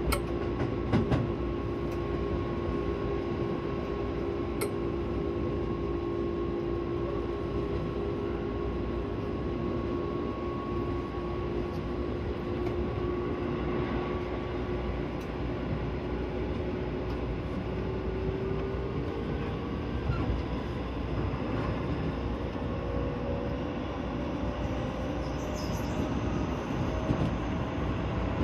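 Keio 9000 series electric train running, heard from inside the car: the whine of its Hitachi IGBT VVVF inverter drive holds steady over the rumble of wheels on track. Over the last third a second whine rises steadily in pitch. There are a few sharp clicks near the start.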